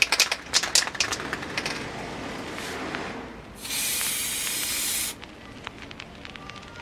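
Aerosol spray-paint can: sharp rattling clicks at the start as the mixing ball knocks inside the shaken can, then a softer hiss, and about halfway through one loud, even spray burst lasting about a second and a half that cuts off sharply.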